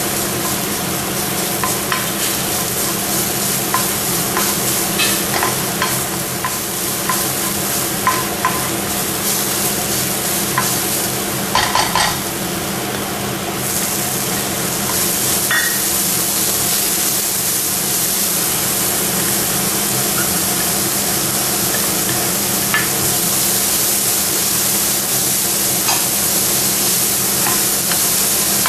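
Food frying in olive oil in a pan, sizzling steadily, with scattered clicks and scrapes of a utensil stirring against the pan. About fourteen seconds in the sizzle turns louder and brighter. A faint steady low hum runs underneath.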